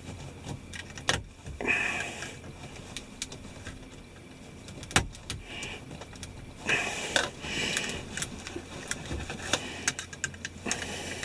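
Hands prying and pulling a plastic 4WD selector switch out of a truck's dash panel: scattered sharp clicks, with bursts of scraping and rattling about two seconds in, around seven seconds in, and near the end.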